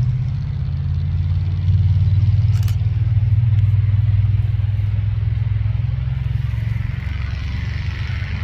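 Steady low engine rumble, with a single sharp click about two and a half seconds in and a hiss that rises toward the end.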